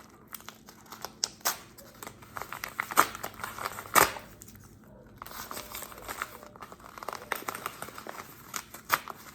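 Packaging bag being crinkled and torn open by hand, an irregular run of crackles with two louder snaps about three and four seconds in.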